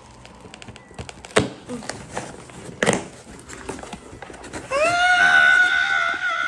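A cardboard shipping box is pulled open, with rustling, clicks and a couple of sharp tearing strokes. About three-quarters of the way in, a woman lets out a long, loud, high-pitched squeal of excitement, held on one pitch.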